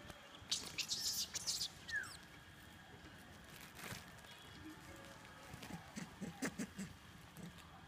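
Open-air ambience: a flurry of sharp crackling clicks between about half a second and two seconds in, with a short falling chirp at about two seconds. A few soft low knocks follow near the end.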